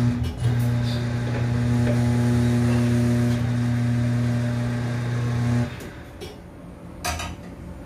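Tyre-changing machine's electric turntable motor running with a steady hum while a scooter tyre's bead is levered around the rim, stopping abruptly about five and a half seconds in. A sharp metal clank follows near the end.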